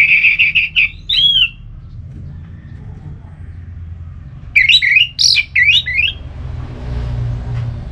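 Orange-headed thrush singing: a quick buzzy trill and a short rising-then-falling note at the start, then a longer phrase of rapid, swooping whistled notes about four and a half seconds in, over a steady low hum.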